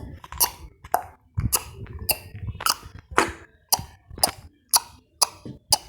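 A steady series of sharp taps, about two a second.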